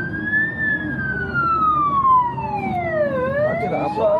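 Fire service vehicle's siren on a slow wail, heard from inside the moving vehicle: the tone climbs to its peak about half a second in, falls for nearly three seconds, then starts rising again, over the vehicle's running rumble.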